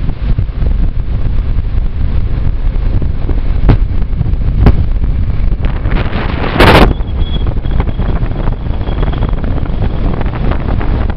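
Wind rushing over the microphone from the open window of a moving passenger train, over the train's steady running rumble. A few sharp knocks come through, and a loud burst of noise about six and a half seconds in.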